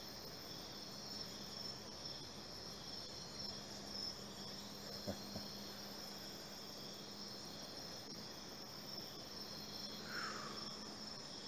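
Steady high-pitched insect chorus, chirring without a break. Under it runs a faint low hum, with two light clicks about five seconds in and a short falling chirp near the end.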